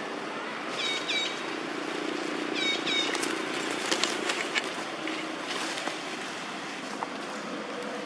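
Forest ambience: a steady hiss with short, high chirping calls that come in quick pairs, twice. Rustling and a few sharp snaps of twigs and branches come around the middle.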